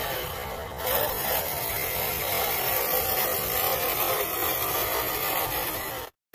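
1/10-scale RC crawler's electric motor and drivetrain buzzing as it drives over dirt and pine needles. The sound gets louder about a second in and cuts out for a moment near the end.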